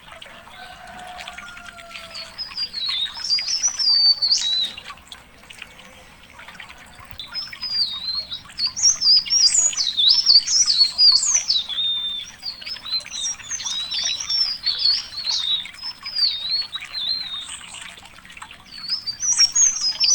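A songbird singing a fast, high, twittering warble of rapidly rising and falling notes: a first phrase about two seconds in, then near-continuous song from about seven seconds on.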